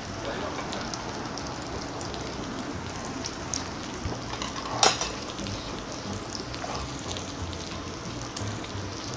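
Frozen pork belly sizzling steadily on a hot griddle. A single sharp click about five seconds in.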